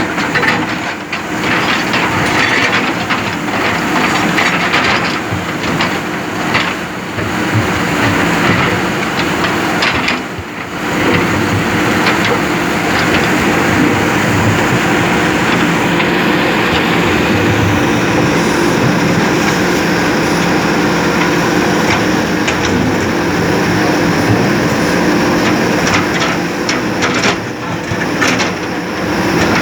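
JCB backhoe loader's diesel engine running steadily under load, with scattered clanks and knocks from the machine's bucket and arm at work, thicker in the first third and again near the end.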